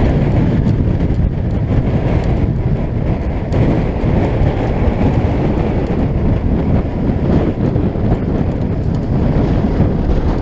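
A small motorboat running through rough sea, heard as a heavy, steady low rumble of wind on the microphone, engine and water, with scattered sharp ticks.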